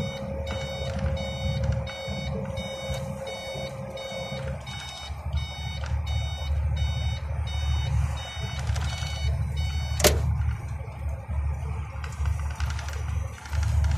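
Iveco truck's diesel engine running while driving, heard from inside the cab, with an electronic beep repeating about twice a second that stops about nine seconds in. One sharp knock comes about ten seconds in.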